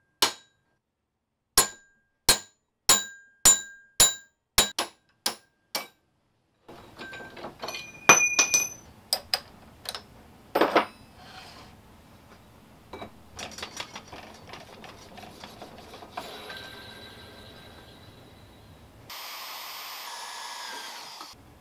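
Hammer blows driving a metal rod out of a cast aluminium faceplate, about ten sharp ringing strikes in the first six seconds. After that come scattered metallic clinks and knocks, and near the end a short steady noise.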